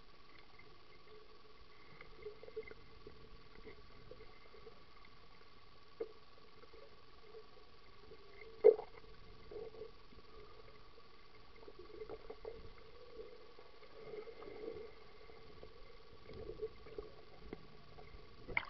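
Muffled underwater sound from a camera held under pool water: a faint steady hum with scattered gurgles and soft knocks, and one sharp knock about nine seconds in.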